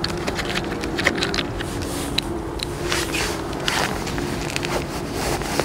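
Crunching of gravel and small clicks and scrapes as firecrackers are set down on a gravel surface, over a steady low hum.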